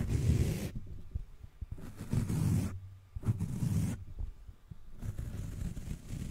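Fingers rubbing and brushing foam microphone windscreens right on the microphones, a muffled, deep rustling in about four bursts of roughly a second each.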